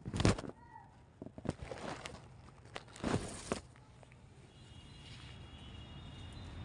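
Footsteps and phone-handling noise as the person filming walks quickly: a loud scuff at the start, then a few irregular scrapes and thumps. After that the background goes quieter, with faint thin high tones near the end.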